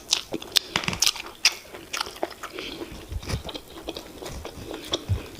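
Close-miked eating: chewing and wet mouth smacks with irregular sharp clicks, as semolina fufu with oha soup is eaten.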